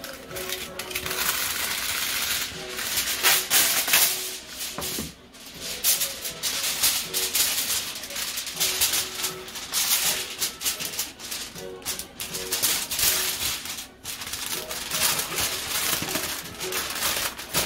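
Aluminium foil crinkling and crackling in irregular bursts as a sheet is handled and folded around a foil parcel.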